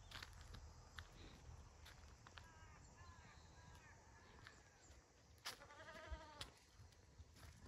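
Goats bleating: a faint, wavering call a couple of seconds in, then a louder, quavering bleat lasting about a second past the middle.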